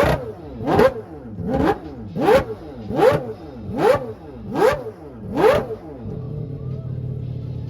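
Rotary engine revved in quick repeated blips, a little more than once a second. Each rev climbs and ends in a sharp exhaust crack. About six seconds in it drops to a steady idle.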